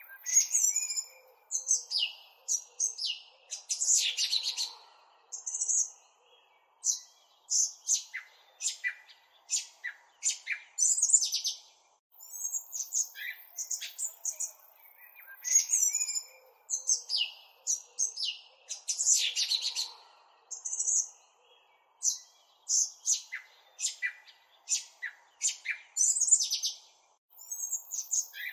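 Small birds chirping and trilling in quick, overlapping calls, the same stretch of calls repeating about every fifteen seconds.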